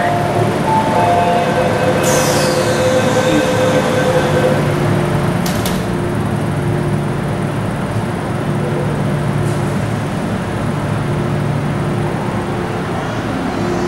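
A Hong Kong MTR Kwun Tong Line metro train standing at an underground platform, its on-board equipment humming steadily. Near the start a short two-tone warning sounds, then the train doors and platform screen doors slide shut, with a sharp clunk about five and a half seconds in.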